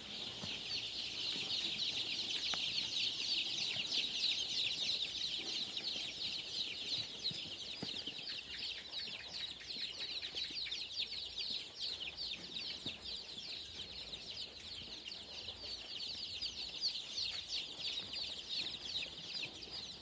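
A large flock of Khmer native Skuay-breed chicks peeping in a brooder. Many short, high chirps overlap into a dense, continuous chorus that grows louder about a second in.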